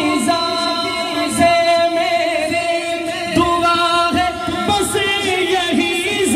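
A male naat reciter singing long, held notes that waver in pitch into a microphone.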